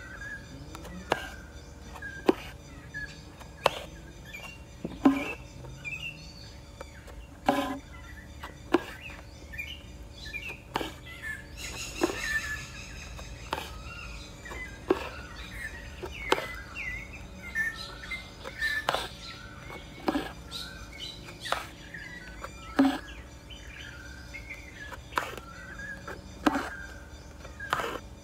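Embroidery needle punching through taut canvas in a wooden hoop as stitches are made: a sharp tick every second or so, unevenly spaced. Birds chirp in the background.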